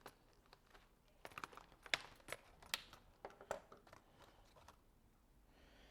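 A new product box and its packaging being opened and handled: scattered light clicks, taps and crinkles.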